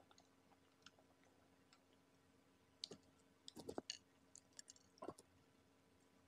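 Faint crackling clicks from the crispy coating of fried chicken being pulled apart by hand, in a few short clusters from about three to five seconds in; otherwise near silence.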